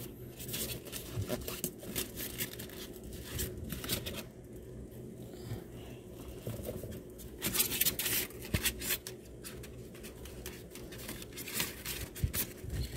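Plastic wrapping crinkling and a foam packing insert rubbing and scraping as a boxed mini sewing machine is unpacked and handled, a run of irregular rustles and small clicks.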